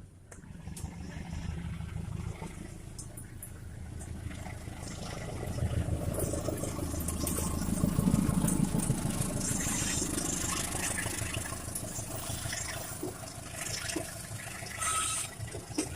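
CC 201 diesel-electric locomotive passing, its engine hum building to a peak about eight seconds in and then fading, with light clicks from the wheels on the rails.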